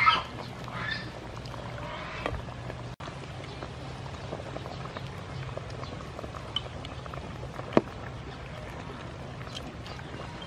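Wooden ladle scooping pork stew out of a metal pot and pouring broth and meat into a clay pot: liquid pouring and splashing, with occasional knocks of the ladle on the pots, the sharpest about eight seconds in. A short high-pitched sound rings out right at the start.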